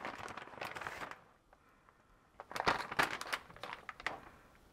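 Plastic bag of shredded cheddar cheese crinkling and crackling as it is handled, in two spells: a short one at the start, then, after a pause of about a second, a louder one with sharp clicks.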